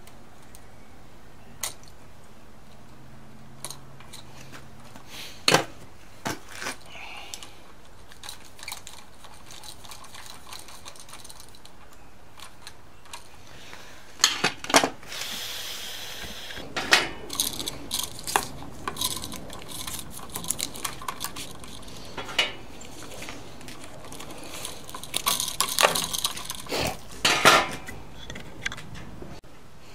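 Scattered clicks, taps and light metallic clinks of copper ground wires, a wire nut and hand tools being handled in an electrical switch box, sparse at first and much busier from about halfway, with a short scraping rustle.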